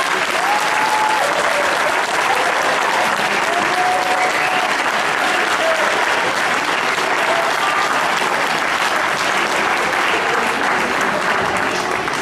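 Audience applauding, a dense steady clapping with a few voices calling out over it.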